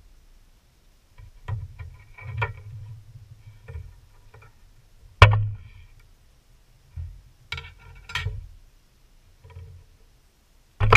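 Scattered clicks and knocks of a hands-free electric can opener and the can's cut-off metal lid being handled after the cut, with the motor stopped. One sharp knock about five seconds in is the loudest.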